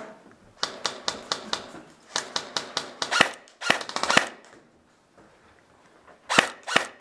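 Airsoft guns firing: rapid strings of sharp pops at about five shots a second, a louder group of shots with some ringing after them, a brief pause, then more shots near the end.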